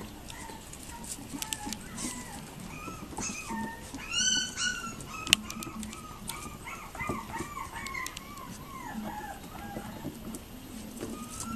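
Yorkiepoo puppies, seven weeks old, giving many short high-pitched yips and whimpers as they play, with a louder yelp about four seconds in and a single sharp click just after it.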